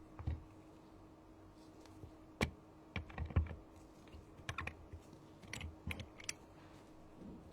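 Irregular light clicks and taps of small tools and phone parts being handled, with a busier run of them in the middle.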